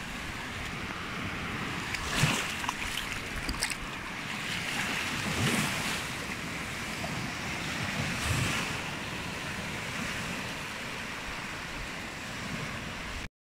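Small waves breaking and washing up over sand at the water's edge, the surf swelling every few seconds.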